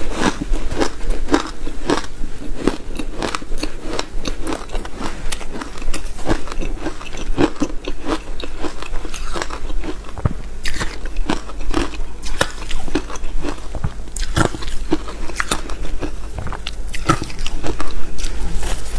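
Close-miked biting and chewing of soft powdery shaved ice coated with matcha and buckwheat: a steady run of crisp crunches and crackles, several every second.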